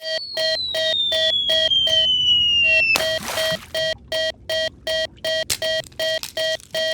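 Japanese railroad crossing warning bell ringing "kan-kan", one pitched electronic tone repeating about four times a second. Over the first three seconds a whistle-like tone slides down in pitch, and a short hiss of noise comes near the middle.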